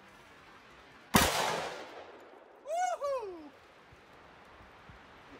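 A single shot from a Smith & Wesson Governor revolver firing a .410 shotgun shell of target birdshot, about a second in, its report dying away over about a second. About a second and a half later a voice gives a short two-part whoop.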